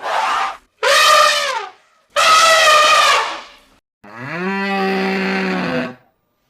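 Three loud, higher-pitched animal calls, each falling in pitch at its end, followed about four seconds in by a cow's long, low moo lasting about two seconds.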